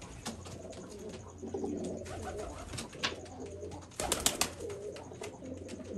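Domestic pigeons cooing, with a short flurry of loud wing flaps about four seconds in as a white pigeon takes off.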